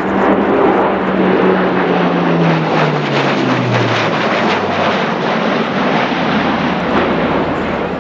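Airbus A400M Atlas's four TP400 turboprop engines and propellers running loud in flight. The propeller tone falls steadily in pitch over a few seconds in the middle, over a constant rushing engine noise.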